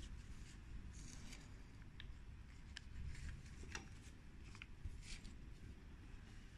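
Faint crinkling and rustling of a thin clear plastic bag as it is smoothed flat under a vacuum sealer's clamp bar, with a few sharp clicks, over a low steady hum.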